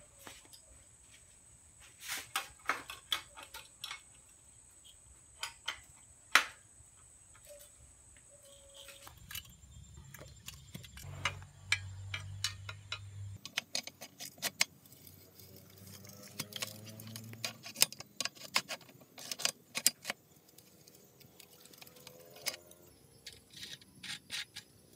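Scattered sharp metal clinks, taps and scrapes from a screwdriver and rusted steel bicycle bottom-bracket parts (cup, spindle) being worked and handled by hand. The clinks come thickest in a quick run about two-thirds of the way through.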